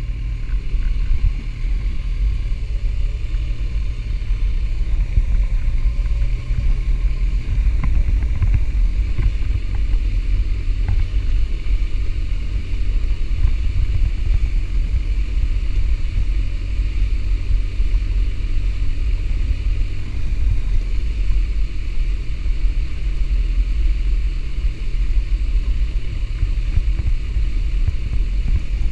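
Sport motorcycle riding slowly over cobblestones: a steady low engine and road rumble with a constant fine jitter from the rough paving.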